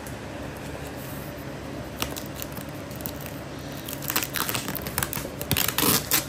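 Packing tape being pulled and torn off a shipping package, with packaging crinkling; the crackling and tearing come in a dense run over the last two seconds, after a single click about two seconds in.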